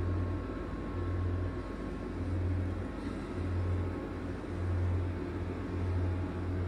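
Low hum from the refrigeration units of frozen-food vending machines. It swells and fades about once a second over a steady rushing background.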